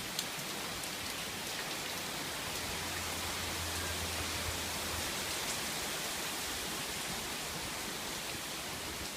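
Steady rain pouring onto surfaces at the tail end of a hailstorm, an even hiss with a couple of sharp ticks right at the start.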